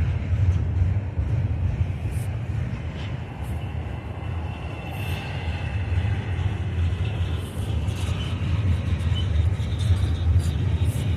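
Freight train cars rolling past on the rails, with faint wheel squeal and scattered clicks from the wheels, under heavy wind rumble on the microphone.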